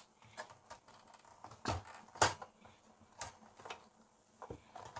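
Scattered clicks and knocks of plastic clips and parts being worked loose by hand inside a vintage hi-fi receiver's chassis, with the loudest knock a little over two seconds in.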